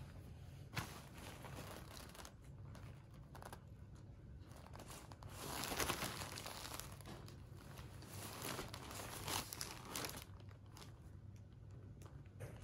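Plastic wrapping of a toilet-paper multipack crinkling in irregular rustles as the pack is handled and turned over, loudest about six seconds in.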